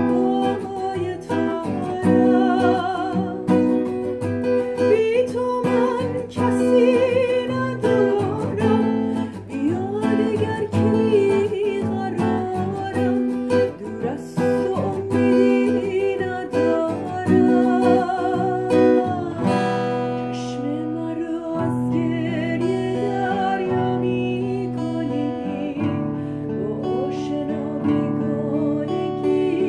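A woman singing a Persian song with vibrato, accompanying herself on a steel-string acoustic guitar with strummed chords.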